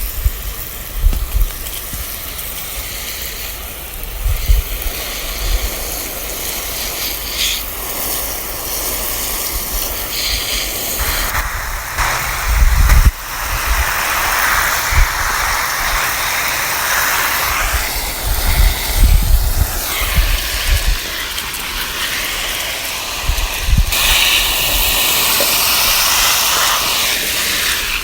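Garden hose spraying water onto plants: a steady hiss of spray that gets brighter and louder about eleven seconds in and again near the end, over scattered low rumbles.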